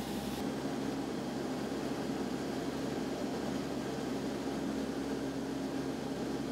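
Four-engine turboprop transport, an LC-130 Hercules, running with a steady drone and a low hum of a few fixed tones.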